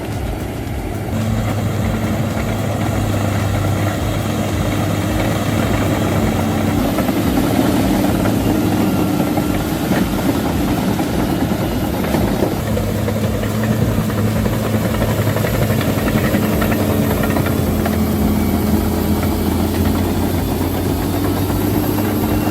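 Engine of heavy machinery running steadily with a low, even hum; the sound changes character a few times.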